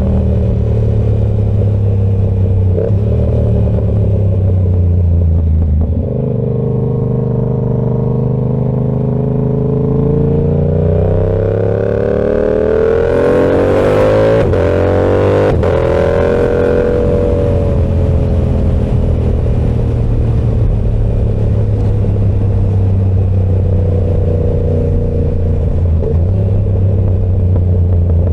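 Yamaha R7's parallel-twin engine through an SC-Project exhaust while riding. The note climbs steadily under acceleration from about six seconds in, breaks sharply a couple of times around the middle, then settles into steady running.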